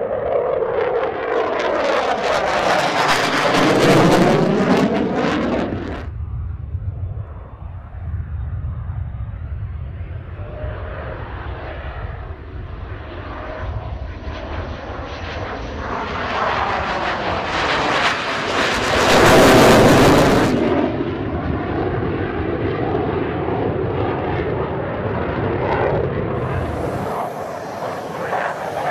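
Jet noise of the HAL Tejas fighter's single General Electric F404 afterburning turbofan as the jet makes low display passes, with a sweeping whoosh. The noise swells to a loud peak about four seconds in and cuts off abruptly near six seconds. It then builds again to a second, louder pass around nineteen to twenty seconds and falls away.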